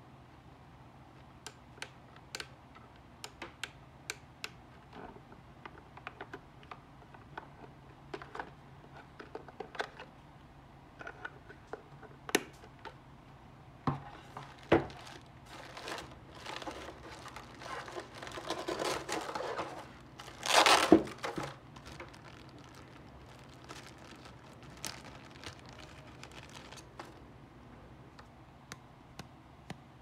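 Hands handling small plastic parts over a polystyrene foam packing tray: scattered sharp clicks and taps, with a stretch of plastic bag crinkling and rustling about two-thirds through, loudest just before the three-quarter mark.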